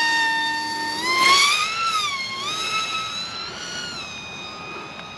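Small RC plane's electric motor and propeller whining in flight. The pitch is steady at first, then rises and wavers about a second in, and the sound grows fainter as the plane flies off.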